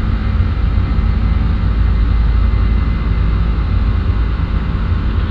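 Airbus A310 jet climbing after takeoff, heard from inside: a loud, steady, deep rumble of engines and airflow with a faint steady hum over it.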